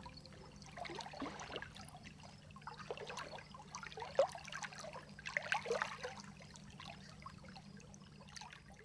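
Shallow water lapping gently at the edge of a sandbar: soft, irregular small splashes and trickles, with a slightly sharper splash about four seconds in.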